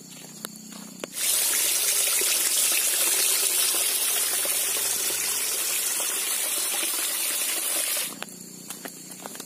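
A stream of water pouring steadily onto rock and shallow water, a gushing splash that starts abruptly about a second in and cuts off about eight seconds in.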